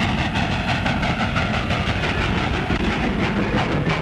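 Train running along the track, its wheels clattering over the rail joints in a steady rhythm.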